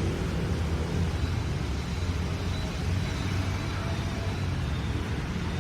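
Outdoor city ambience: a steady low rumble of distant road traffic, with no distinct events.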